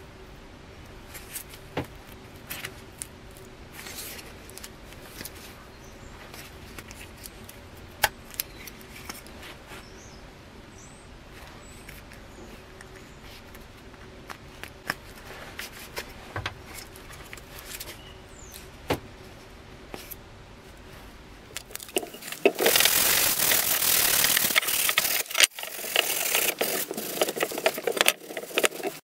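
Quiet handling with scattered small clicks and scrapes as gloved hands work the rusted pins in a cleaver's handle, over a faint steady hum. About three-quarters of the way through, loud, uneven rubbing starts as a rag wipes the rusty steel blade, with one short break.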